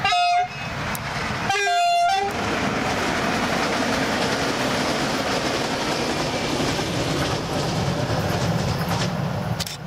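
Passenger multiple unit's horn sounding two blasts, a short one and then a longer one about a second and a half in, followed by the steady rumble and rush of the train running past, which falls away near the end.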